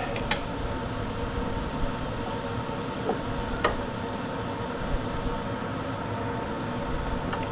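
Steady mechanical hum in the background, with a few faint, sharp clicks as pliers work at the drive cable's snap-in clip on the mower deck.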